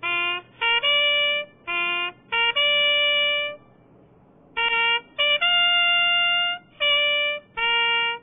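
Closing music: a single brass-like melody line of short and held notes, with a pause of about a second in the middle.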